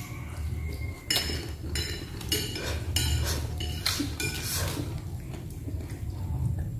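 Spoon and chopsticks clinking against ceramic plates at a meal: a run of sharp clinks, some with a short ring, from about one second in to about five seconds, over a steady low hum.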